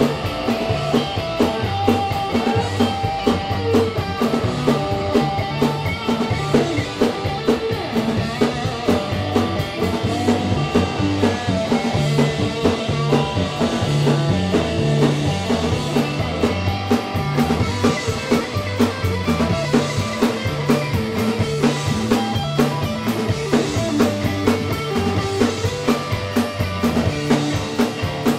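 Live rock trio playing an instrumental passage without vocals: guitar, bass guitar and drum kit keeping a steady beat.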